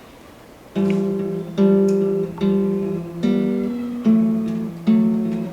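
Acoustic guitar strummed in slow chords, one strum roughly every 0.8 seconds, starting a little under a second in. The chord changes about halfway through.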